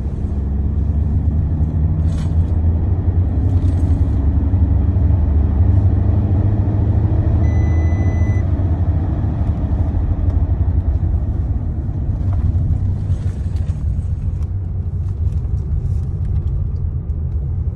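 Car engine and tyre noise heard from inside the cabin at track speed: a steady low rumble whose engine note climbs gradually over the first several seconds, then eases. A short steady beep sounds about eight seconds in.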